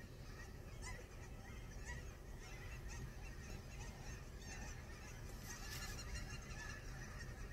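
A flock of Canada geese honking, many short calls scattered and overlapping throughout.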